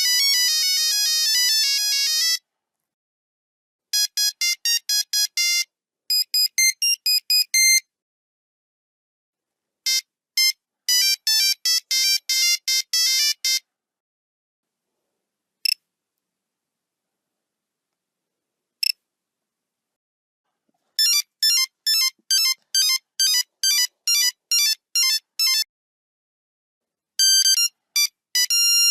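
Nokia 3310 monophonic ringtones played one after another: runs of quick beeping melody notes, a single note at a time, separated by silent gaps, with two lone beeps about midway.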